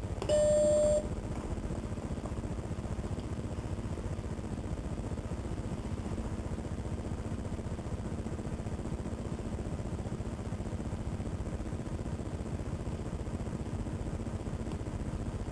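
Apple Macintosh SE startup beep as the computer is switched on: one short, steady tone under a second long. It is followed by the machine's steady, low running hum.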